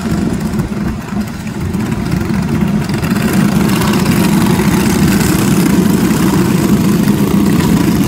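Several quarter midget race cars' small engines running at idle and low speed as the cars roll in a pack, growing louder about three seconds in.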